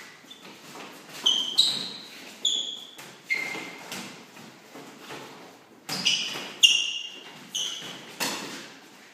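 Trainers squeaking sharply on a hall floor as two boxers move, with thuds of light gloved punches and clinches. There are about eight short squeaks and knocks, irregularly spaced.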